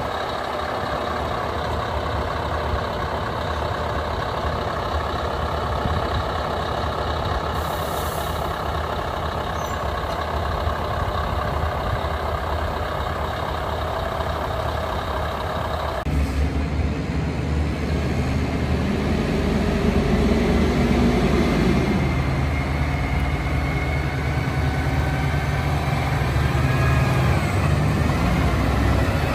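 A Scania prime mover's diesel engine idling steadily. About halfway through the sound changes to a louder Kenworth T909 road train's diesel engine as the truck drives slowly past, its engine note rising and then falling.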